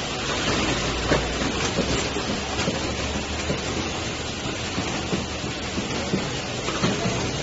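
Automatic packaging-line machinery running: a steady mechanical hum with a dense, irregular clatter of small clicks and knocks from the cartoning mechanisms and conveyors.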